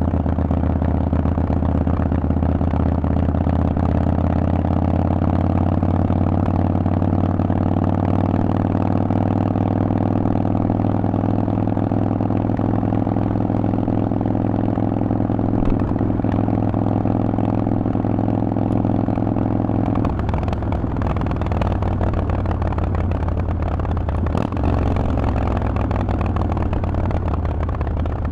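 Harley-Davidson Forty-Eight's air-cooled 1200 cc V-twin running through a Vance & Hines aftermarket exhaust, holding a steady cruising note for about twenty seconds. The note then turns choppy and uneven as the throttle rolls off and the bike slows toward a stop.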